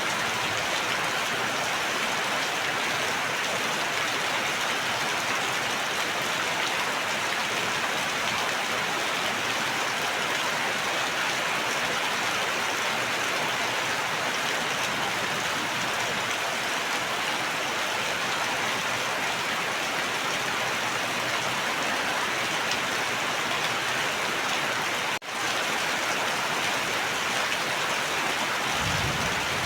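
Steady rain falling, an even dense hiss, with a split-second dropout about 25 seconds in and a brief low rumble near the end.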